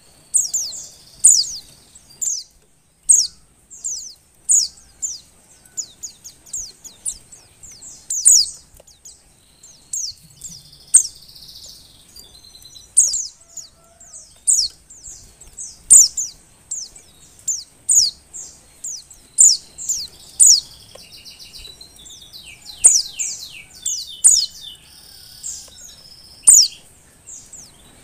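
Female white-eye (pleci) in breeding condition calling: short, high, sharply falling chirps about once or twice a second, with a quicker run of descending notes near the end. These are the calls of a female in heat, used to stir male white-eyes into singing.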